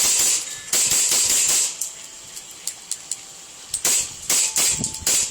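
Two WE M1911 gas blowback airsoft pistols firing in rapid strings of sharp cracks with a hiss of gas, with a stretch of lighter, scattered clicks in the middle. The owner says one of the pistols has been malfunctioning.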